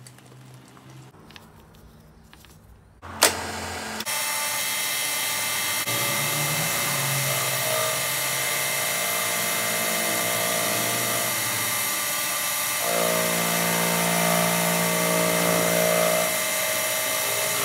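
Milling machine spindle starting after a click about three seconds in, then running steadily while a face mill cuts across the welded aluminium cylinder deck of a Honda PCX crankcase to make it flat; the tone shifts a couple of times as the cut goes on.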